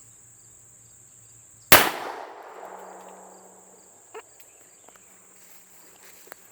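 A single gunshot from a Traditions single-action .357 Magnum revolver firing a .38 Special round, a sharp crack under two seconds in with an echo that dies away over the next couple of seconds. Insects trill steadily, and two small clicks follow the shot.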